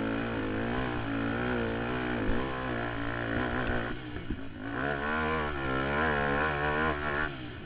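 Suzuki QuadSport Z400 ATV's single-cylinder four-stroke engine revving under hard throttle, its pitch rising and falling continually as the rider gets on and off the gas. It drops off briefly about four seconds in and again just before the end.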